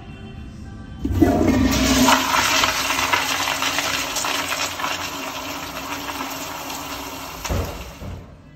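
Kohler Highcliff commercial toilet flushed by its chrome flushometer valve: a sudden rush of water about a second in, then water swirling and draining down the bowl, slowly fading. A low thump comes near the end as the flush dies away.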